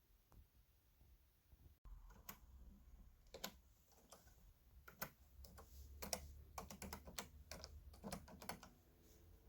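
Keys of a Canon Typestar 10-II electronic typewriter being typed on, a run of soft, irregular clicks starting about two seconds in, with no print mechanism heard.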